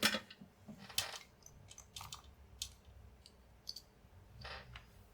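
A string of irregular light clicks and taps as a computer mouse and small tools are handled on a workbench. The loudest are right at the start and about a second in.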